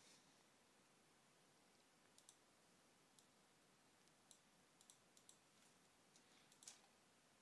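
Faint, scattered clicks of a computer mouse and keyboard over near-silent room tone: a dozen or so short clicks starting about two seconds in, coming closer together near the end.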